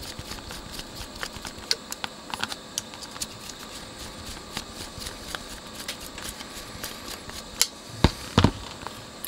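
Screwdriver undoing the small screws that hold an amplifier chip to a metal heatsink: a run of light metallic clicks and ticks, with a couple of louder knocks near the end.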